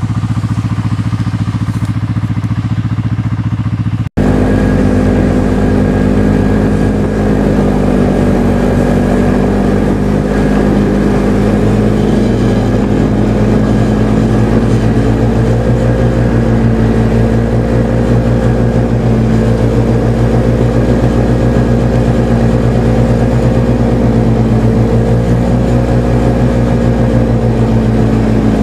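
Snowmobile engine running at a steady speed, heard from on board the moving machine. There is an abrupt cut about four seconds in, after which the engine note is louder and clearer, with only slight rises and falls in pitch.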